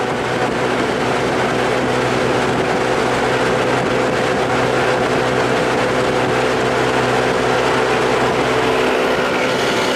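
A 1993 30 hp Evinrude two-stroke outboard running steadily at speed, pushing an aluminium boat along. A rush of wind and water runs under the engine drone.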